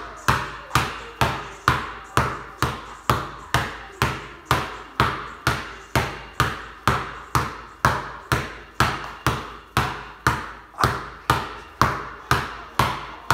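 Basketball dribbled on a concrete garage floor: a steady bounce about twice a second, each bounce ringing briefly in the garage.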